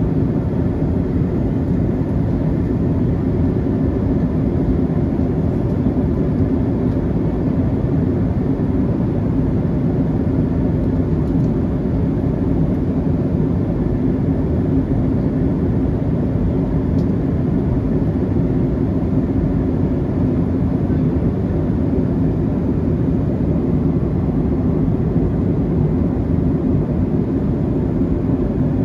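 Steady cabin noise of a Boeing 737-700 in flight, heard from a window seat over the wing: a low, even roar of airflow and its CFM56-7B turbofan engines, with a faint steady hum.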